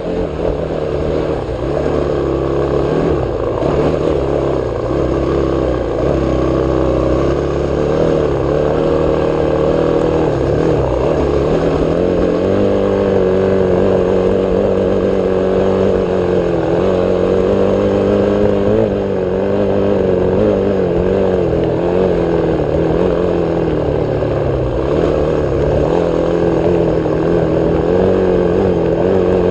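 Off-road vehicle engine running hard along a dirt trail, heard from on board, its pitch wavering up and down with the throttle.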